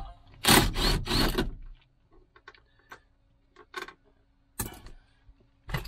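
Cordless power driver run in three short bursts on a tight rear-seat mounting bolt, followed by a few small clicks and knocks of metal parts being handled.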